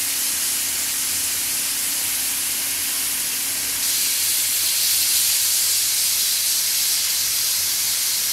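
State Railway of Thailand steam locomotive No. 824, a Pacific-type engine, standing still and venting steam with a steady hiss that grows louder about four seconds in.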